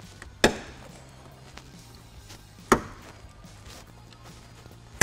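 Plastic wire harness clips popping out of a pickup truck's door frame as the harness is pulled free: two sharp snaps about two seconds apart.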